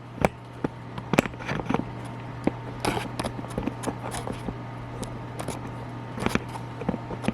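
Handling noise: scattered clicks, taps and light knocks as a camera on a tripod is moved and set up, over a steady low hum.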